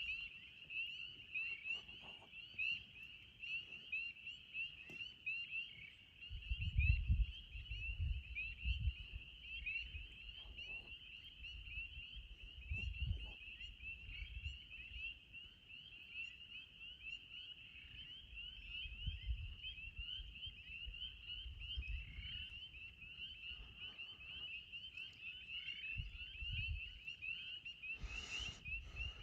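Chorus of spring peepers: many short, rising peeps overlapping without a break. Low rumbling noise comes and goes underneath, and there is a brief louder noise near the end.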